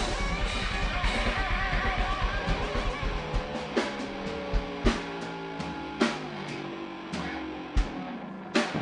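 Rock band playing live with distorted electric guitar and drum kit, an instrumental ending with no singing. For about the first three seconds the band plays a dense, fast rhythm, then it breaks into single loud drum hits over ringing, sliding guitar notes.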